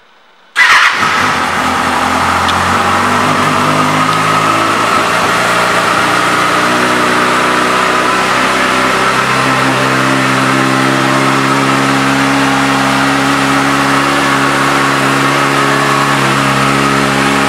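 2015 Kawasaki Ninja ZX-6R's 636 cc inline-four starting about half a second in, with a brief flare of revs as it catches, then idling steadily.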